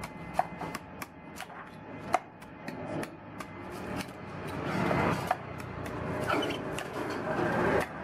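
A cleaver shaving and chopping the white husk of a young coconut against a wooden chopping stump. The first half is a run of sharp taps, two or three a second, and from about halfway it becomes a louder, denser scraping as the blade pares along the nut.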